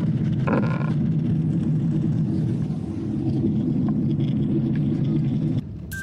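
Steady low rumble of jet airliner cabin noise during the approach to landing, cutting off suddenly near the end.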